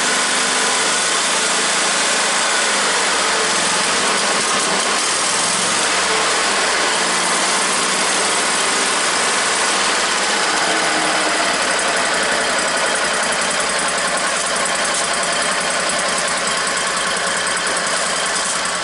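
Kohler small gasoline engine on a stump grinder, running steadily with its carburetor freshly cleaned and the machine reassembled.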